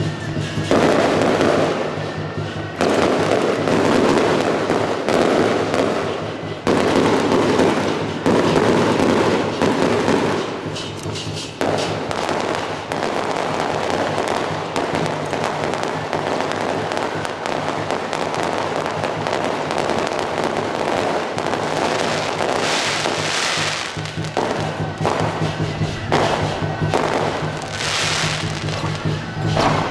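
Fireworks going off in a dense, nonstop barrage of crackling bangs and bursts.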